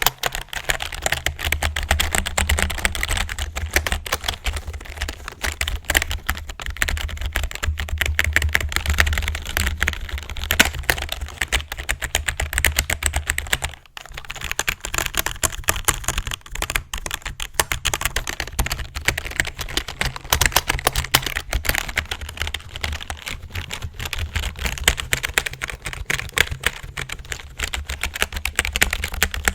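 Fast, continuous typing on a computer keyboard, a dense stream of key clacks that stops briefly about halfway through.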